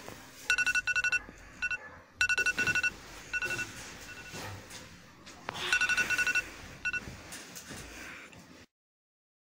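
Electronic beeping in quick bursts of short, high beeps, several bursts a second or so apart, with rustling between them; it all cuts off suddenly near the end.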